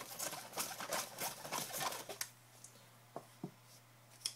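Paper raffle slips rustling as a hand stirs and rummages through them inside a baseball cap. The rustling stops about two seconds in, followed by a few faint clicks and a sharper tick near the end as a slip is drawn.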